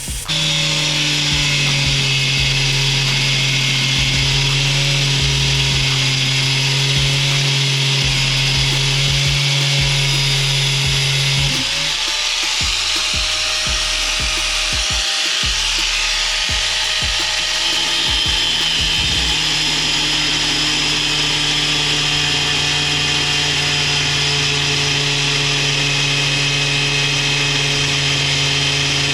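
Angle grinder switched on and cutting through a shelf: a steady motor hum under a loud high grinding hiss. About twelve seconds in, the hum breaks up and wavers for several seconds as the disc works in the cut, then steadies again.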